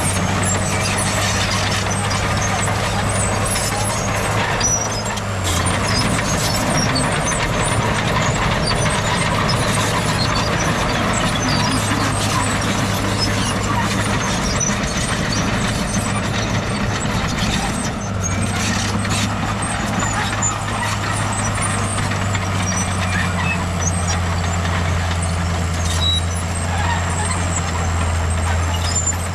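Heavy diesel earthmoving machinery running steadily under load, with a noisy hiss above the engine note. The low engine drone changes about five seconds in and settles back about eighteen seconds in.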